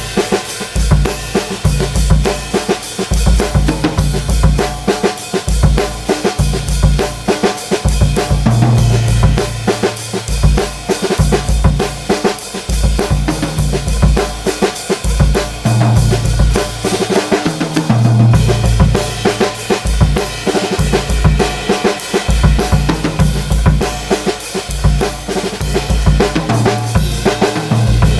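Pearl Midtown compact drum kit (16x14 bass drum, 13x5.5 snare, 10" and 13" toms) played with hickory sticks, unequalised: a busy groove of bass drum, snare and cymbals. Stretches of deeper, ringing drum hits come in about a third of the way through and again past halfway.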